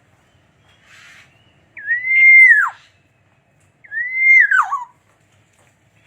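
Black-naped oriole giving two loud fluty whistles about two seconds apart. Each is a clear held note that drops steeply at the end.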